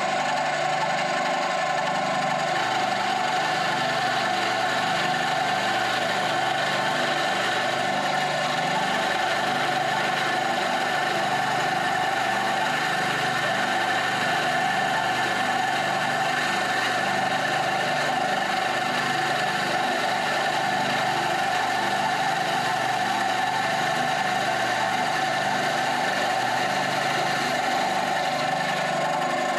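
Bandsaw running steadily, a constant machine hum with a fixed whine that holds the same level throughout.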